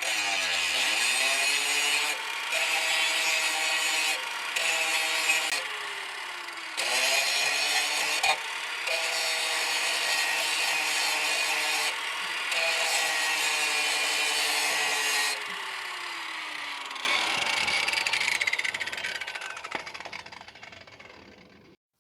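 Power grinder grinding down a rusted steel exhaust hanger, its motor pitch sagging each time the disc is pressed into the metal and picking up again. Near the end it is louder for a few seconds, then winds down and stops.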